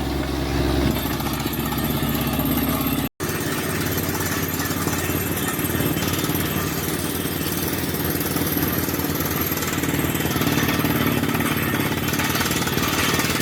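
Borewell drilling rig boring into hard rock: a rapid, steady hammering over the drone of the rig's engine. The sound cuts out for an instant about three seconds in.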